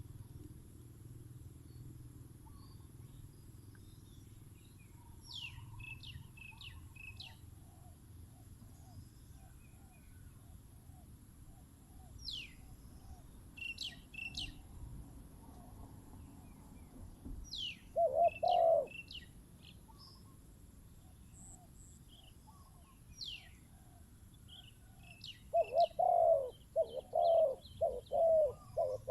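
Spotted doves cooing: runs of low, repeated coo notes, with louder bouts about two-thirds of the way in and again near the end. Small birds chirp with short, sharp high notes in between.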